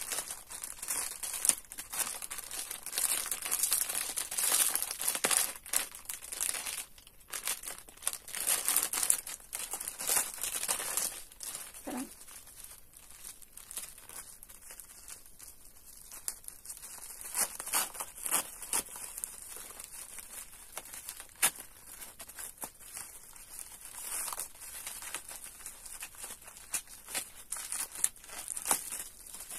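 Plastic wrapping of a Charm sanitary-pad pack crinkling as it is opened and handled: dense crackling for the first ten seconds or so, then sparser, softer rustling.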